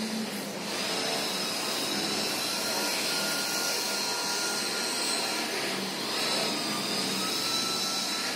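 A steady machine whine, like a small electric motor running, with a constant high tone over an even hiss.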